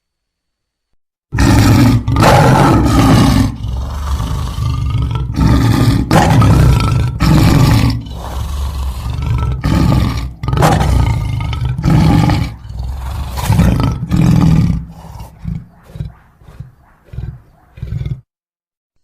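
Lion roaring: a loud series of long roars that grow shorter and fade into a run of brief grunts, then stop abruptly.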